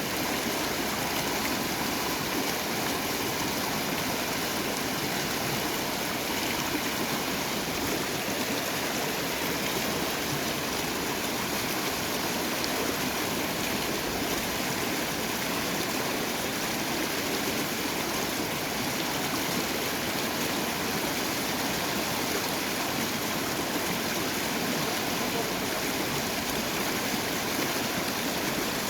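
Water of a small river running steadily, a continuous even rush with no breaks.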